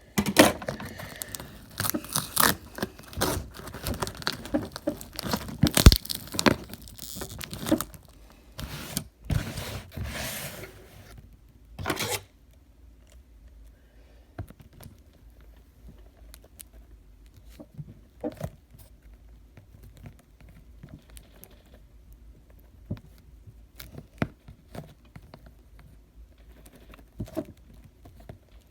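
Scissors cutting and tearing at a watch box's packaging, with crinkling, dense for about the first twelve seconds; after that only scattered faint clicks of handling.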